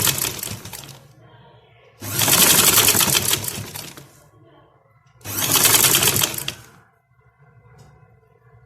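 Sewing machine stitching in three short runs, each starting sharply and slowing off, with brief pauses between them.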